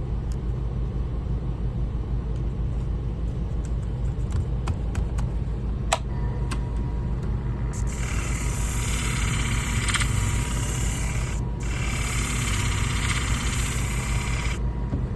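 Knife and shear sharpening machine with a flat abrasive wheel: a steady hum with a few clicks as the wheel is set up, then a thin whine as the wheel runs. About halfway through, the shear blade is honed on the 1200-grit disc with a hissing grind in two passes of about three seconds each, split by a short break.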